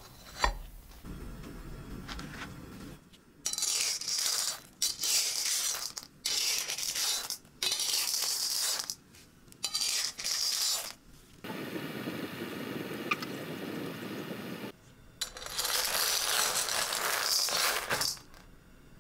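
Hot smooth pebbles clattering and scraping in a metal wok as a metal spoon moves them over a pancake baking underneath. The rattling comes in several short bursts, with a sharp knock near the start.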